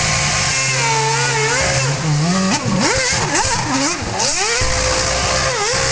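Toyota Formula 1 car's V8 engine revving hard, its pitch swinging up and down again and again, over a steady hiss of spinning tyres during a burnout and doughnuts.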